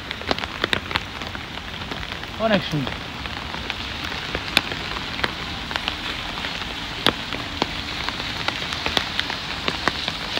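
Steady rain falling, with many sharp individual drops ticking on a nearby surface. About two and a half seconds in, a short pitched sound slides downward.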